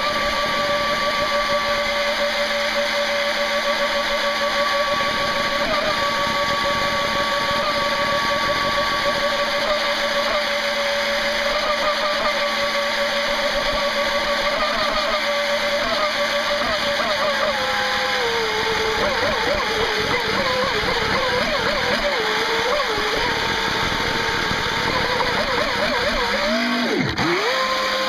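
Brushless motor of an NQD RC jet boat whining at a steady high pitch, the pitch wavering from about two thirds in, then dropping sharply and climbing back near the end as the throttle comes off and on again. The motor runs on rusty, freshly oiled bearings, which the owner says make it sound awful.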